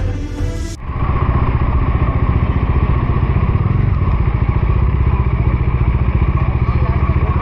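Background music for under a second, then a cut to a motorcycle engine running steadily while riding, with an even pulsing beat.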